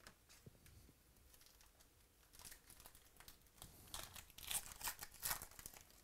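Foil trading-card pack being torn open and its wrapper crinkled as the stack of cards is pulled out: a run of sharp crackles starting about two seconds in, loudest near the end.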